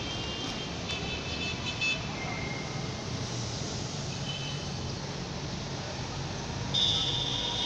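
Street traffic running steadily below, with high-pitched vehicle horns sounding several times. A long, loud horn comes near the end.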